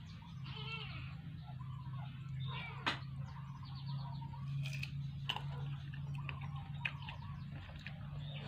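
Mouth sounds of a person eating mango and rice by hand: chewing, with sharp smacks or clicks now and then, over a steady low hum. Short chirping animal calls come and go in the background.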